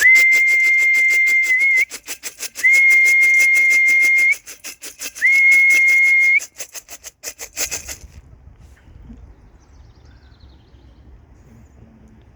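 Three long, steady whistle blasts, each turning up slightly at its end, blown to call circling racing pigeons down to land at the loft. A fast rattle of clicks runs under the blasts and stops about two-thirds of the way through.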